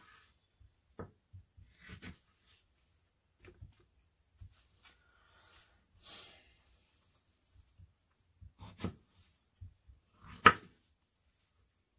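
Kitchen knife hulling and slicing strawberries on a paper towel over a countertop: scattered soft cuts, rustles and light taps, with a sharp knock near the end.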